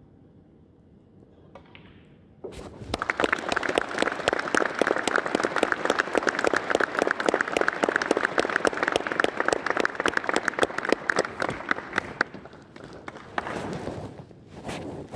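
Audience applauding: a crowd's clapping starts suddenly about two and a half seconds in, holds for roughly ten seconds, then dies away, with a brief smaller burst near the end.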